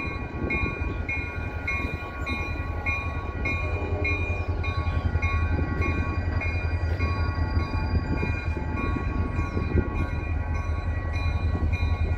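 Locomotive bell ringing steadily, about two to three strokes a second, over the low rumble of an EMD SD40 diesel locomotive arriving at slow speed and growing slowly louder.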